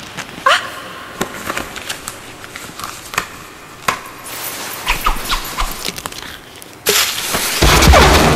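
Light clinks and knocks of a container being handled over a plastic tub. About seven seconds in, a sudden loud rushing hiss with a deep rumble starts and swells as a thick white cloud of fog erupts from the tub.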